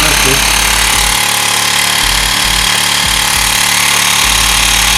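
Mi portable electric air compressor (cordless tyre inflator) running, its small pump motor giving a loud, steady mechanical rattle and hum, with no tyre attached.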